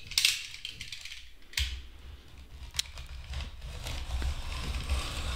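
Utility knife slitting the packing tape on a cardboard shipping box: a few short scraping strokes, then a longer, steadier cut near the end, with low bumps of the box being handled.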